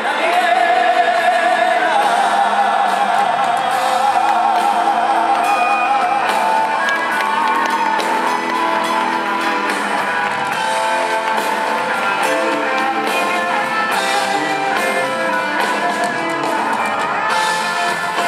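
Live band music with a male singer holding long notes with wide vibrato in the first few seconds, over drums and cymbals, heard in a large hall.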